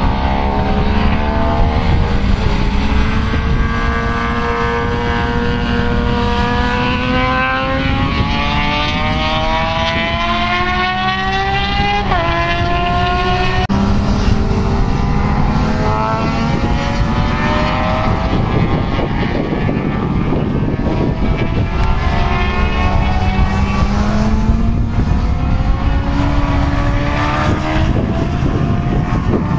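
Sport motorcycles racing on a road circuit, engines held at high revs and climbing steadily in pitch as they accelerate. There is a sharp drop about twelve seconds in, like a gearshift, before the pitch rises again. A steady low rushing noise runs underneath.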